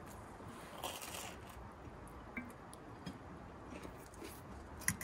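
Faint sounds of two people eating pasta: chewing and a few light clicks of forks against plates, over a quiet background.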